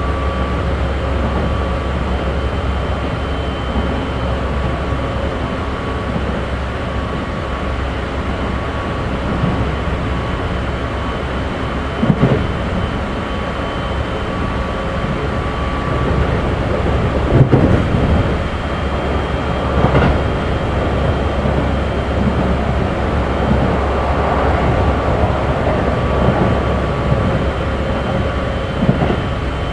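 Keikyu 1500 series electric train with Mitsubishi GTO-thyristor VVVF traction, heard from inside the passenger car while running between stations. A steady low rumble carries several steady tones, with a few sharp knocks from the running gear in the second half.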